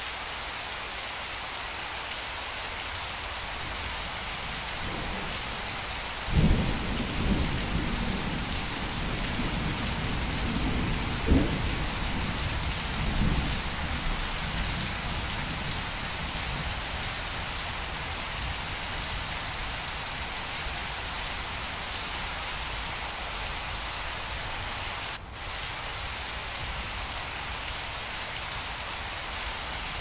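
Steady rain falling. About six seconds in, a low rumble of thunder rolls in, loudest around six and eleven seconds, and dies away by about fifteen seconds.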